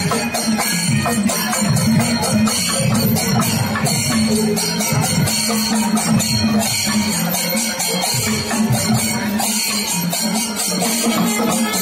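Music with fast, steady jingling and rattling percussion over shifting pitched tones.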